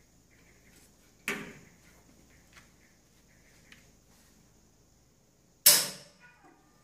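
Two sharp clunks from a vertical autoclave as it is switched on and powers up. They come about four seconds apart, the second louder, and each dies away over about half a second.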